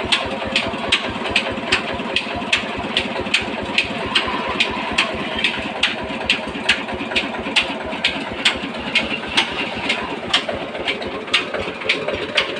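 Stationary engine running a village flour mill (chakki) through a flat belt and pulleys: a steady mechanical drone with a sharp clack repeating about twice a second.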